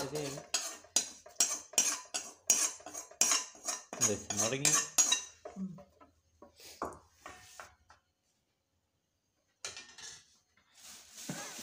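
Metal kitchen utensils clattering against pots and dishes: a quick run of sharp clinks, about three a second, over the first five seconds. A hiss comes in near the end.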